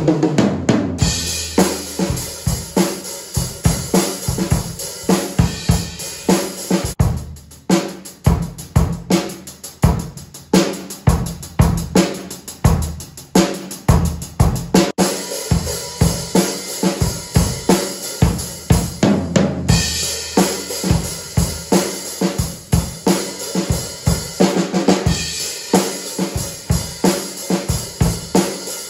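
A drum kit played in a steady groove, with fast, even strikes and cymbals ringing over much of it.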